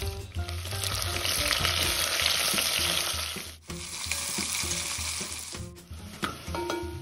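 Sliced onions sizzling in hot oil in a heavy pot while a wooden spatula stirs them. The loud sizzle dips briefly about three and a half seconds in, then carries on more softly and fades near the end.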